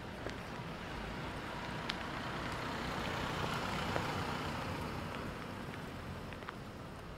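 A road vehicle passing by, its noise building to a peak mid-way and then fading.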